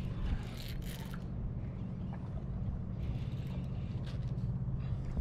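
Steady low hum of an electric trolling motor holding the boat in place on anchor mode, with a few brief scratchy noises over it.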